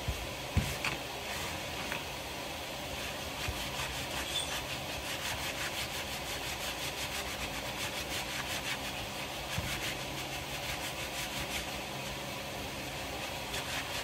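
Paper towel rubbed quickly back and forth over a plastic cutting board, wiping paint off its surface: a rhythmic scrubbing of about four or five strokes a second, strongest from a few seconds in until near the end, over a steady faint hum.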